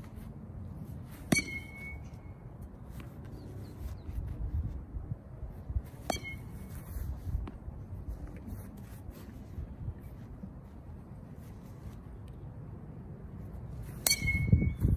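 Metal baseball bat hitting pitched balls: three sharp hits, about a second in, around six seconds and near the end, the first and last with a short ringing ping. A low rumble comes in near the end.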